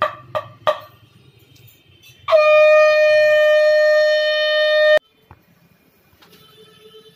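Conch shell (shankha) blown in one loud, steady note of about three seconds that stops abruptly. Three short, sharp sounds come first, in the first second.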